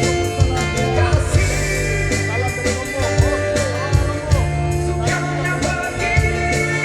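A rock ballad played with drums, bass and guitar, with a melody line that bends in pitch.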